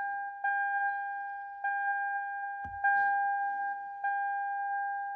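2009 Toyota Camry's dashboard warning chime: a single bell-like ding repeating about every 1.2 seconds, each fading before the next, sounding with the ignition switched off and the key still in.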